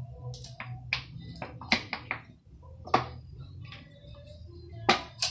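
Plastic squeeze bottle of homemade seasoning being squeezed and shaken: a dozen or so sharp, uneven clicks and taps, the loudest near the end, over a low steady hum.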